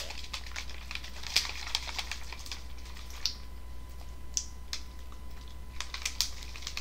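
Thin plastic water bottle being handled, crinkling and clicking irregularly.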